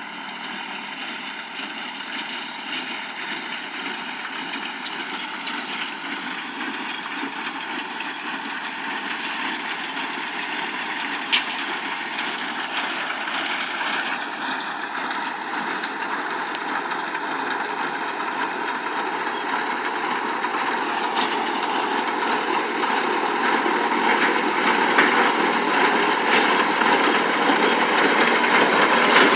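Deutz-Fahr M410 and baler running steadily while baling, the machinery noise gradually getting louder, with one sharp click about eleven seconds in.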